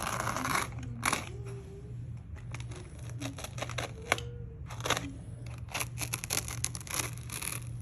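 Kaizen foam being cut and torn down a layer by hand: an irregular string of short crackling rips and clicks, over a steady low hum.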